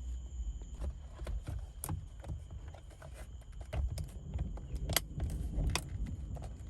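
Irregular clicks and knocks of hands working with parts, a few of them sharper, about two, five and nearly six seconds in. Crickets chirp steadily in the background.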